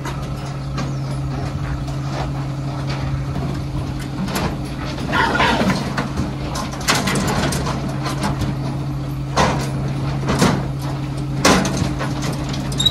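Truck engine running steadily at a standstill with a low, even hum, with scattered knocks and clatter over it.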